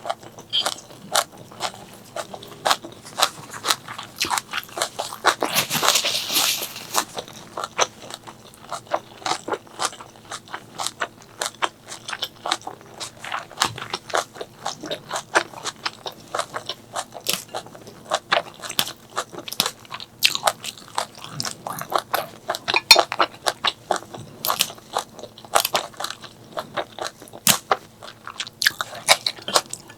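Close-miked eating: rapid crunching bites and chewing of food, a steady run of sharp clicks, with a longer hiss of noise about six seconds in.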